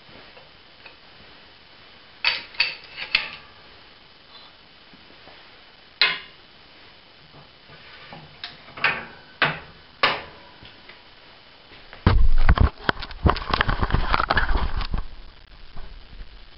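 Sharp metal clanks and clicks, a few at a time, from a hydraulic bottle-jack shop press being worked by hand. About twelve seconds in, loud rubbing and rumbling handling noise takes over as the camera is picked up and moved in close.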